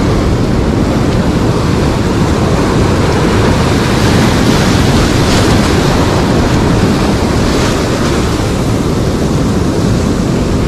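Ocean surf washing in steadily, with wind buffeting the microphone; the wash grows brighter about four seconds in and eases off again about eight seconds in.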